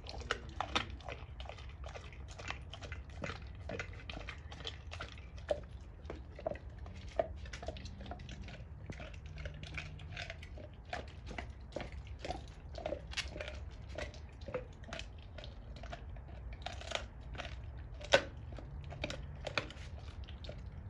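A Doberman chewing a raw pork bone with meat on it: irregular wet crunches and cracks of teeth on bone, one louder crack near the end.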